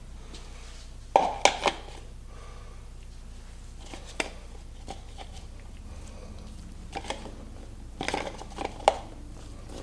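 Tools or parts being handled during an oil change: short knocks and clatters in small clusters, a few seconds apart, over a steady low hum.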